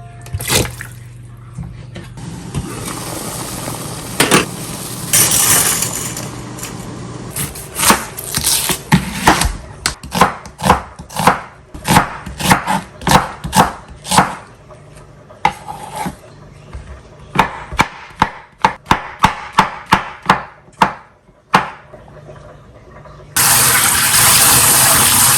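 Knife chopping on a cutting board: a long run of sharp, evenly paced strokes, about two a second. Near the end a loud steady hiss starts suddenly.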